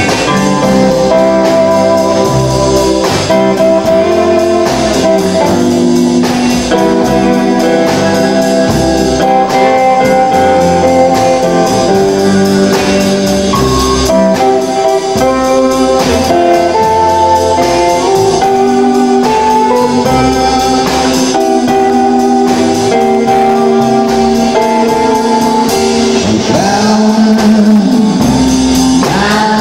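Live rock and roll band playing, with the guitar to the fore over a moving bass line and steady drums.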